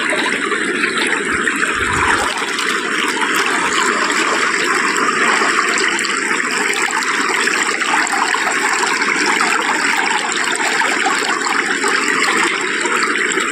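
Shallow river water babbling and rippling steadily as it flows.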